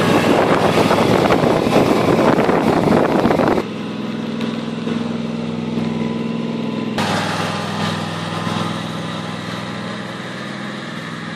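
Husqvarna ride-on lawn tractor's engine running steadily as it tows a moss rake across grass. It is loud and dense at first, then drops abruptly about three and a half seconds in to a quieter, even engine hum.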